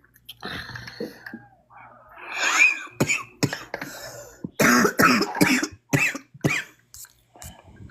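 A person coughing several times in a short fit, sharp hacking coughs in the middle of the stretch.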